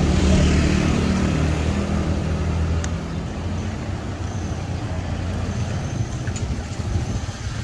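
Street traffic: a motor vehicle's engine running close by, loud at first and fading over the first few seconds, over steady road noise.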